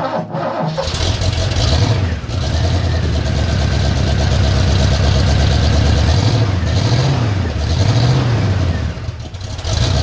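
Ford 351 Cleveland 5.8-litre V8 cranking and catching about a second in, then running with the revs rising and falling unevenly. It is running rough from too much ignition advance and the #2 and #3 plug leads being on the wrong way around.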